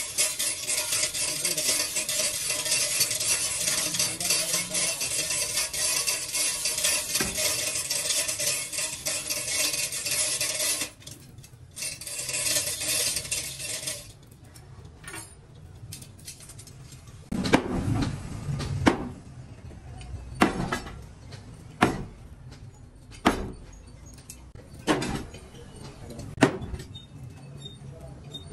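Metalwork on a ship propeller: a steady, harsh grinding noise for about eleven seconds that cuts off suddenly. After a pause come sharp metallic knocks, about one every one and a half seconds.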